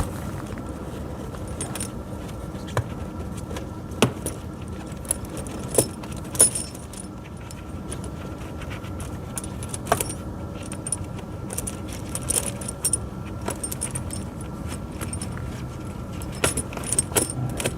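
Steel tractor snow-chain links clinking and rattling as they are handled, with sharp metal clicks every few seconds over a steady low hum.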